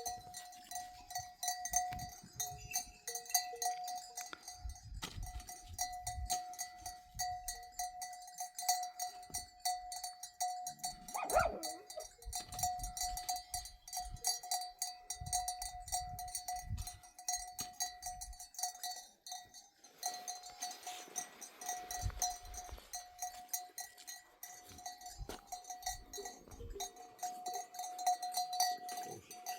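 Bells on a herd of goats and sheep clinking and ringing without a break, with a short animal call about eleven seconds in.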